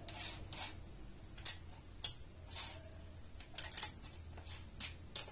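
Faint, irregular small metallic clicks and ticks, about ten in a few seconds, as a 10.5 mm Bosch HSS wood drill bit is fitted into a Black & Decker drill's chuck and the chuck is turned by hand.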